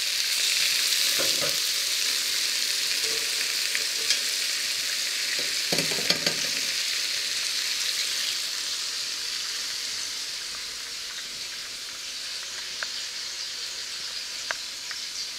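Patties sizzling steadily in a hot black steel frying pan, with a few metal clinks and a short clatter about six seconds in as tongs turn them and a mesh splatter screen is set over the pan. The sizzle eases a little in the second half.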